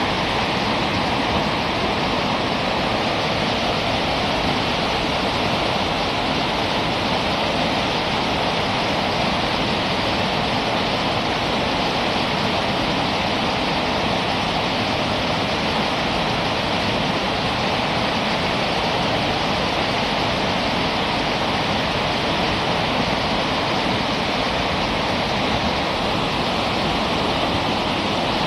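River rapids rushing: a loud, steady wash of whitewater over rocks that never lets up.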